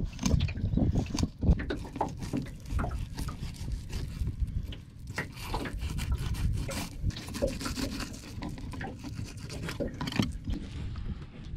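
Irregular rubbing and scraping handling noises with scattered light knocks, over a steady low rumble.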